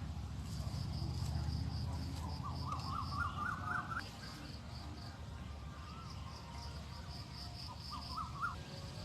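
Wild birds calling: a run of quick rising chirps a few seconds in and again near the end, over a steady high-pitched call pulsing about three or four times a second, with a low rumble that fades midway.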